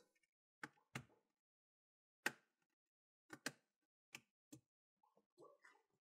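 Plastic retaining clips of an ASUS Transformer Book Flip TP501U laptop's bottom cover snapping loose as the cover is pried off. About seven sharp, separate clicks, with faint handling noise near the end.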